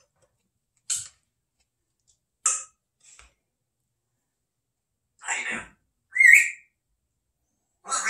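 African grey parrot making a few short, sharp sounds, then a short whistle that rises in pitch about six seconds in.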